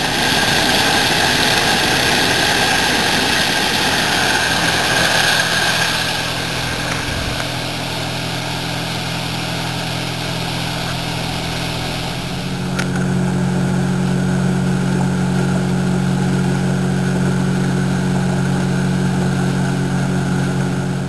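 Boat outboard motor running under way, with a loud rush of wind and water over the first few seconds. About thirteen seconds in, the engine's steady drone grows louder.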